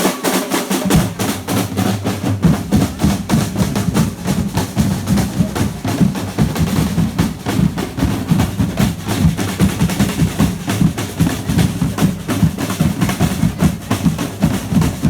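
Street percussion group playing a fast, driving rhythm on snare and bass drums, with drum rolls.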